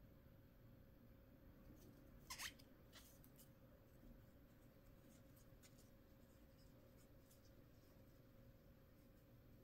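Near silence: faint room tone with a thin steady hum, and a brief faint double scratch about two seconds in.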